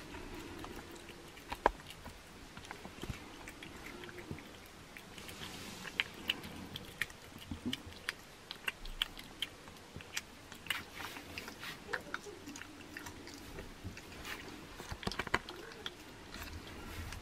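A cat chewing and licking raw meat and a raw chicken head from a bowl: irregular wet smacks and clicks, coming more often after the first few seconds.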